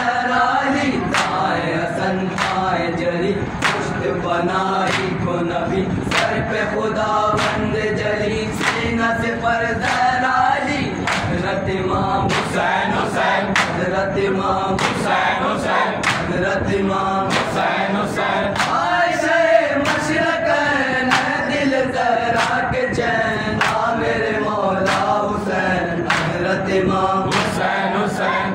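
A group of men chanting an Urdu nauha (Shia mourning lament) together, with rhythmic matam, hands slapping chests in unison, keeping a steady beat a little faster than once a second.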